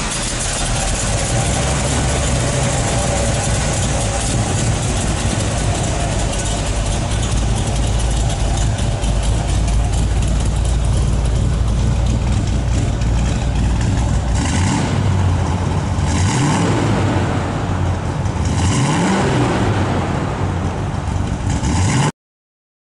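A 383 stroker V8 with Tri-power carburettors, running steadily. In the second half the engine is revved up and let back down a few times.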